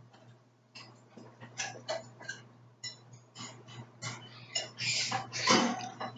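Close-up eating sounds: chewing shells and cheese, with a fork clicking and scraping on a plate, louder near the end.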